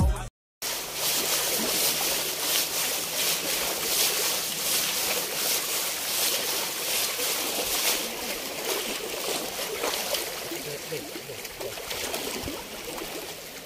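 Shallow seawater washing and sloshing over rocks, with small splashes as people wade and drag a fishing net through it.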